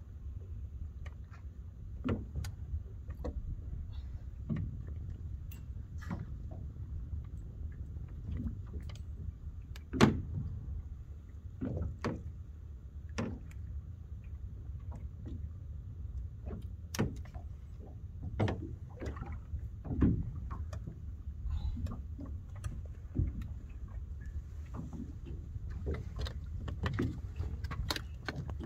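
Water lapping against a small boat's hull, with irregular knocks and clacks over a steady low rumble; the sharpest knocks come about ten and twenty seconds in.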